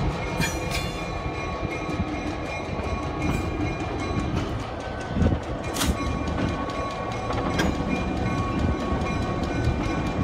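Illinois Central diesel switcher locomotive rolling slowly along the track, its diesel engine running with a steady low rumble. A few sharp clacks from the wheels on the rails come about half a second in, near six seconds and again soon after.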